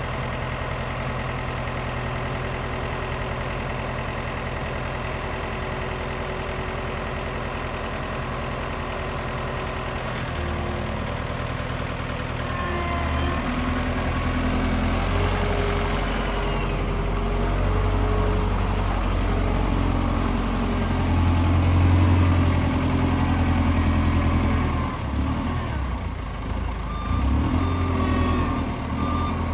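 Combilift C14000 diesel forklift engine idling steadily, then revving up about a third of the way in and running harder with its pitch rising and falling as the truck works. A high whine glides up and down over it, and short repeated beeps come in near the end.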